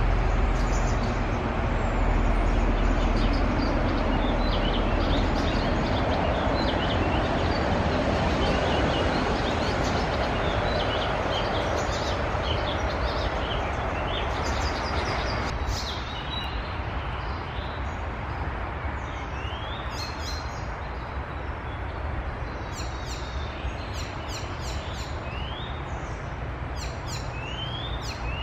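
Woodland birdsong over a steady low background rumble. About halfway through, the rumble drops and a nearer bird sings short rising whistles mixed with sharp high notes, the song of an icterine warbler.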